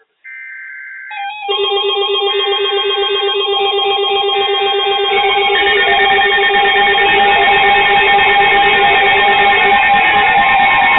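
NOAA Weather Radio SAME alert header: buzzy two-tone data bursts about a second long, repeated three times. From about a second and a half in, several weather alert radios set off their alarms at once, an overlapping din of beeps and steady tones that grows louder and keeps going. This signals a newly issued warning.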